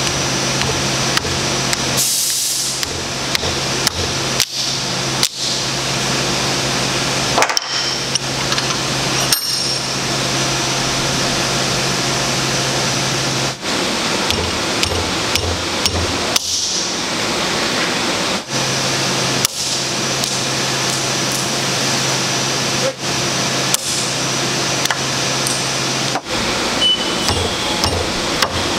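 Hammer striking 3D-printed nylon throw levers clamped in a steel bench vise in an impact-strength test: repeated sharp blows at irregular intervals over a steady background hum.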